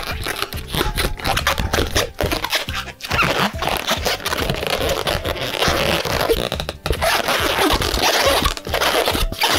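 Inflated latex modelling balloon squeaking and rubbing under the hands as it is twisted and folded into petal loops.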